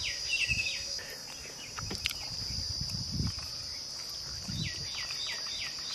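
Steady high-pitched drone of insects, with runs of short, quick chirps at the start and again near the end, and a few soft low thuds.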